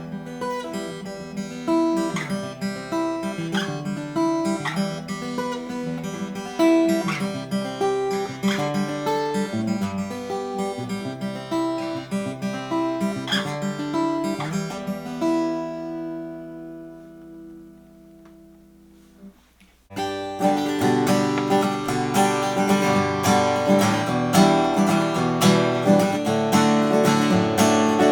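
1919 Martin 0-18 small-bodied acoustic guitar being played: picked notes and chords for about fifteen seconds, a last chord left to ring out and fade almost to silence, then louder, denser strummed playing starting about twenty seconds in.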